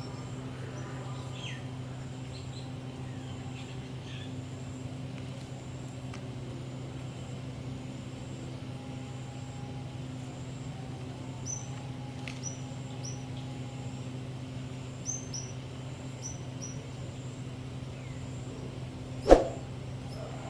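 Small birds chirping in short, scattered calls over a steady low hum, with one sharp knock near the end.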